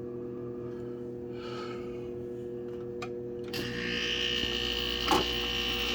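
Old General Electric Carry Cool window air conditioner humming electrically. About three and a half seconds in, it clicks and a louder mechanical hum with a high whine starts up as the unit kicks on, and there is a sharp click near five seconds. The owner takes the lack of airflow to mean the fan is stuck from sitting unused for nearly a year.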